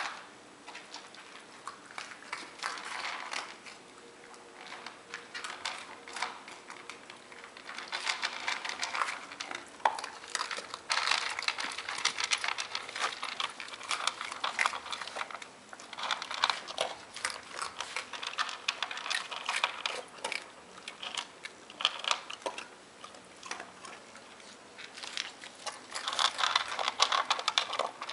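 Dogs eating dry kibble from bowls: rapid, irregular crunching and clicking of chewing, busier in some stretches and quieter in others.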